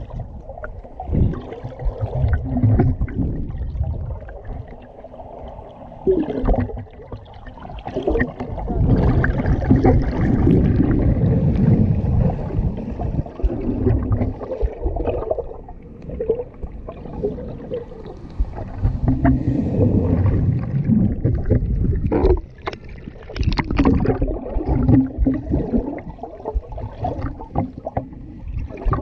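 Water heard from underwater in shallow surf over sand: a muffled, low surging and sloshing that swells and falls over several seconds, with sharp clicks and knocks in the last few seconds.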